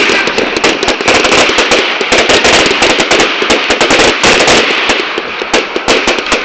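Firework display: a long, rapid string of firecracker-like cracks and pops, many a second, sounding like automatic gunfire.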